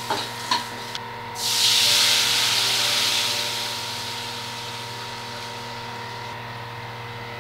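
A spatula clicks and scrapes in a kadai of hot oil with chillies and turmeric, then a milky liquid is poured in and hits the oil with a sudden loud sizzle about a second in that slowly dies down as the pan fills.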